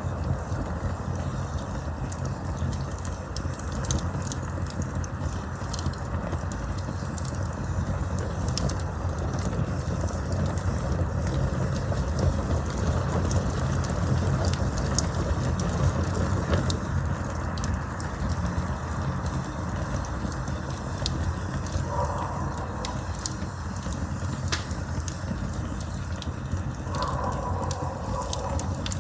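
Campfire burning with a steady low rush of flames and scattered sharp crackles and pops from the burning wood.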